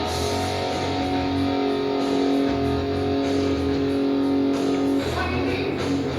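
Background music led by guitar, with held notes over a steady low bass pulse.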